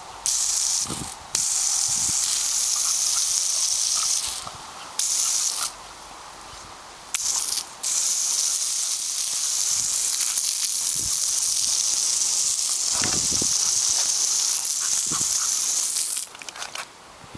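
A loud, steady hiss that cuts in and out abruptly several times, the longest stretch running about eight seconds, with a few soft thumps in between.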